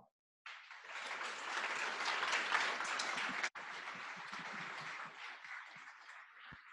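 Audience applauding at the end of a talk. The applause begins about half a second in, cuts out for an instant just past the middle, then thins and dies away near the end.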